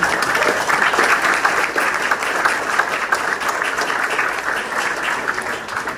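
An audience applauding, many hands clapping together in a dense patter that eases a little near the end.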